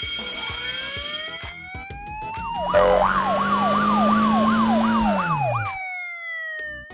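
Cartoon siren sound effect: after a held chord with a slowly rising glide, a fast up-and-down wail starts about three seconds in, over a hiss and a low hum. The hum drops in pitch as the siren stops near the end.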